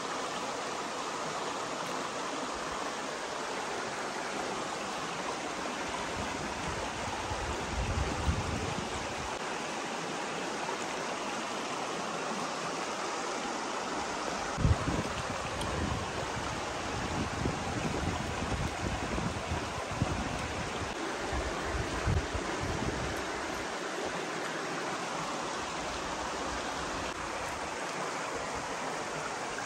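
Stream water running steadily over rocks, with a few soft low thumps now and then from about eight seconds in.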